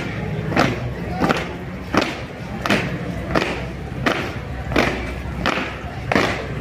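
A squad of marchers stepping in unison on paving, their shoes striking the ground together in a steady beat of about three stamps every two seconds.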